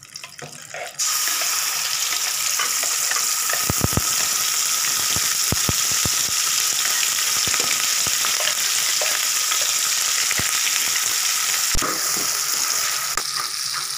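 Ground onion, tomato and cashew paste hitting hot oil in a pan, breaking into a loud sizzle about a second in that keeps on steadily. A spoon stirs the paste, knocking against the pan a few times.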